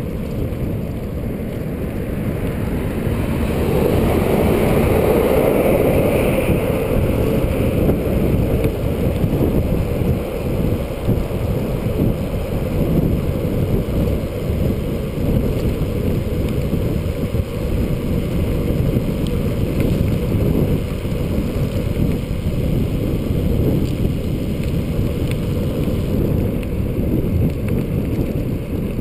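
Wind buffeting a handlebar-mounted action camera's microphone as the bicycle rides along, a steady low rumble that swells louder for a few seconds near the start.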